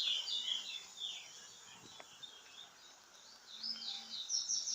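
Small birds chirping: a run of quick high chirps at the start, a quieter stretch, then another burst of chirps near the end.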